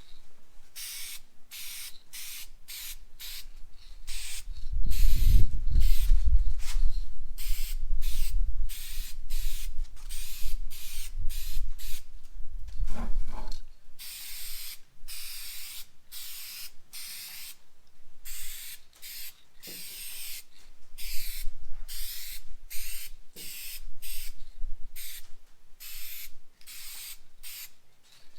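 Dupli-Color aerosol spray paint can hissing in many short bursts as a very light first coat of light blue metallic goes on. The bursts get longer after about halfway through. A low rumble runs underneath from about four to thirteen seconds in.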